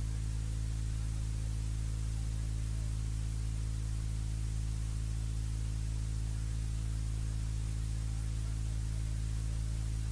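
A steady low hum with a hiss over it, unchanging.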